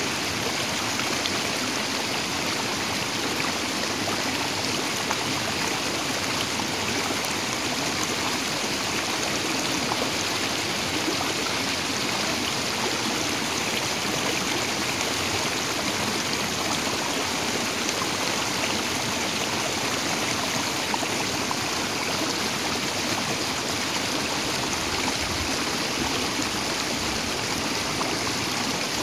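Water of a small stream flowing over a low rock ledge in a little rapid: a steady rush that does not change.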